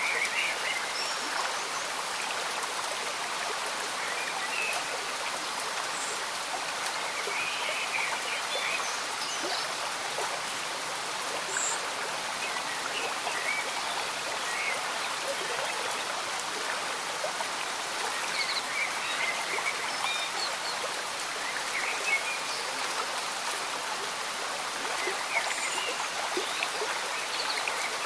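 Slow-moving stream bubbling gently, with rain falling, as a steady even rush dotted with small scattered bubbling and dripping sounds.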